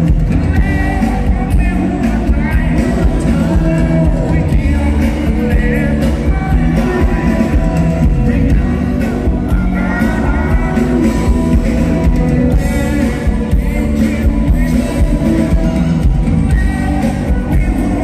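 Live rock band playing through a PA, with electric guitars, bass and drums under a male lead singer.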